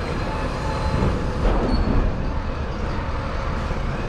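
Steady low rumble of heavy diesel machinery running, heard from inside a truck cab with its own engine off: the container handler setting the box onto the trailer.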